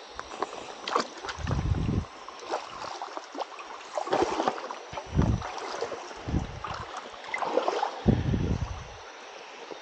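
Water sloshing and splashing in irregular surges as feet wade through a shallow stream, with scattered clicks and rustling from handling a fish and a wire stringer.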